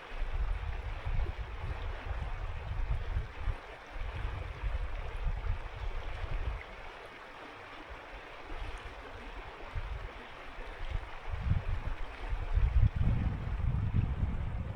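Winter mountain river flowing, a steady rushing hiss of water, with a low rumble that surges and fades unevenly, dropping away in the middle and loudest near the end.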